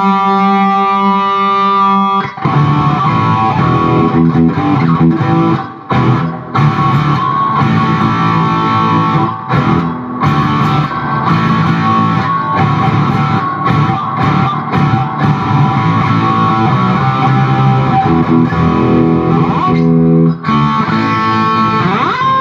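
Distorted electric guitar played through a Zoom G1X Four multi-effects pedal's stock high-gain amp preset into a Peavey 6505+ combo amp. A held chord rings for about two seconds, then a riff follows with many short stops between phrases.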